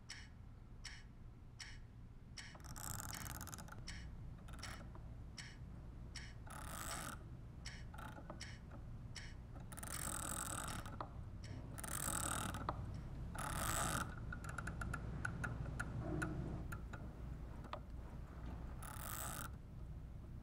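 Steady mechanical ticking, about two clicks a second, over a low hum. Several short hissing sweeps come and go, and a faster run of clicks starts about two-thirds of the way through.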